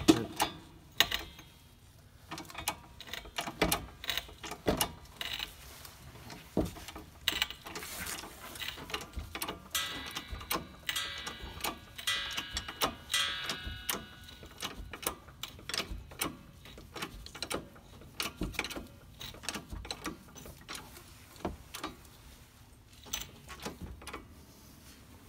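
Hydraulic floor jack being pumped by its handle to lift a car: repeated clicks and knocks from the pump strokes, with a few seconds of creaking about ten seconds in.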